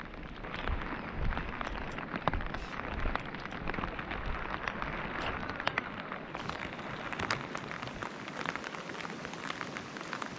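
Steady rain falling, an even hiss dotted with scattered sharp taps of single drops.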